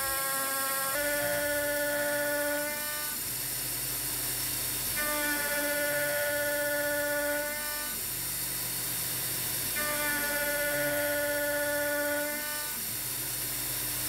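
A CNC mill's end mill cutting a slot in a metal plate on an adaptive toolpath: a steady spindle whine and hiss, with a pitched cutting tone that swells in three times for a couple of seconds each, as the cutter takes each loaded pass.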